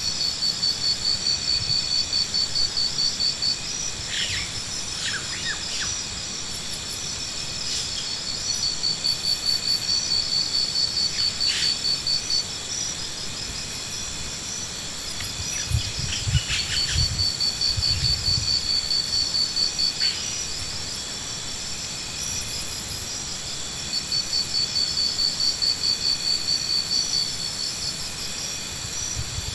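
Insects trilling: a rapid, pulsing high trill in bouts of a few seconds, four times, over a steady high hum of more insects. A few low thuds come about halfway through.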